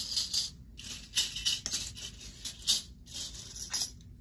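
Small metal filigree findings being handled and sorted by hand, rustling and lightly clinking in a string of short, irregular bursts.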